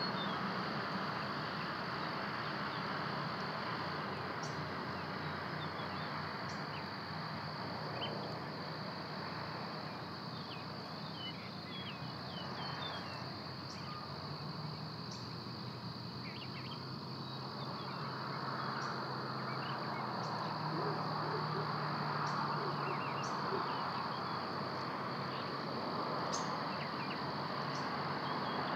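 Outdoor ambience at a treetop hawk nest: a steady rush of background noise and a steady high whine, with scattered short chirps of small songbirds, thickest around the middle.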